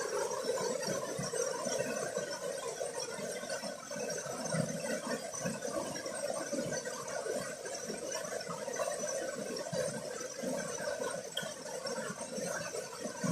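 Water of a small forest cascade rushing and splashing steadily.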